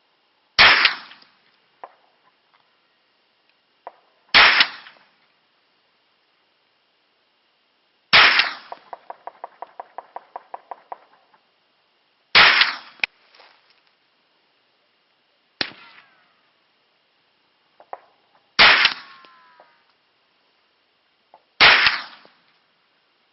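Hi-Point 995TS 9mm carbine fired in slow single shots, about seven shots a few seconds apart. A quick run of rattling pulses follows the third shot.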